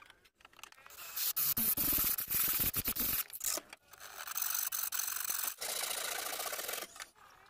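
TOTAL hand saw cutting through a plywood board in quick back-and-forth strokes. It comes in two spells, the first stopping about three seconds in, the second starting about a second later and stopping shortly before the end.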